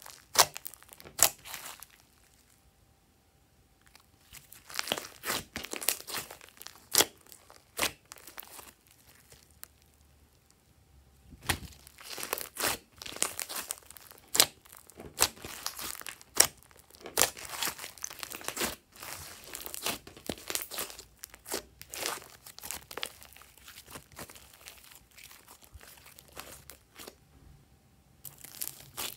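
Hands squeezing and kneading a large mass of fluffy, glossy slime, giving irregular sticky crackles and pops as trapped air bursts, with a couple of short pauses.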